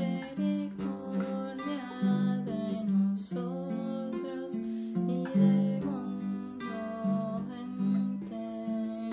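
Gentle music on a plucked acoustic guitar, notes changing steadily in a slow melody.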